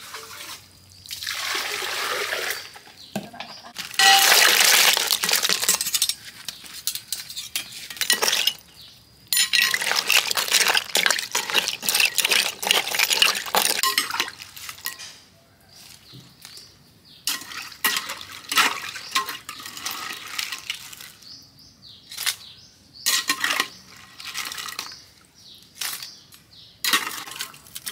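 Water poured and splashing in a clay basin as crayfish are washed, in several long bursts. In the second half come short splashes and clinks as a metal spoon scoops the crayfish out onto a bamboo tray.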